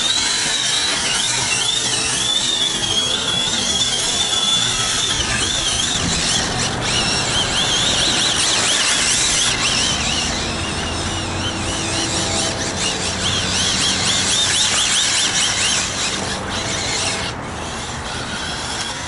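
Arrma Infraction 6S RC car being driven hard on asphalt: a loud, high squeal that wavers up and down over and over as the tires slide and the motor speeds up and slows, over a steady rush of tire noise.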